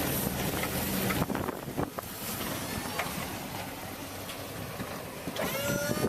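An engine running steadily that stops about a second in, followed by wind noise on the microphone with a few light knocks and a short squeaky gliding tone near the end.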